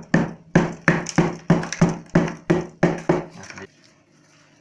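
Hammer tapping fast on a hard baked salt crust, cracking it open: about three blows a second, stopping after about three and a half seconds.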